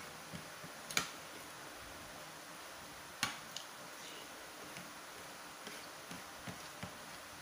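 Metal spoon and fork clinking against ceramic plates during a meal: two sharp clinks about one and three seconds in, then several softer ticks, over a faint steady hiss.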